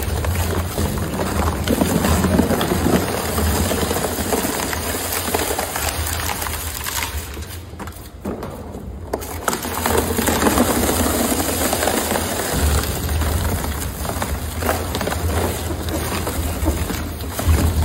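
Twin-shaft industrial shredder running over a steady low motor hum, its rotary cutters tearing up moulded car liner panels. The shredding noise eases for a couple of seconds about halfway through, then picks up again as the next panel goes in.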